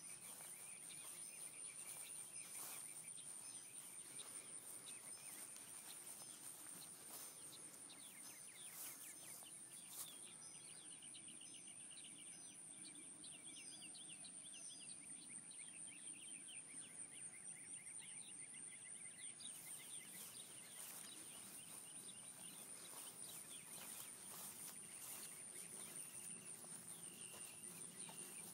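Faint outdoor ambience: a steady high insect trill with small birds chirping in short repeated series.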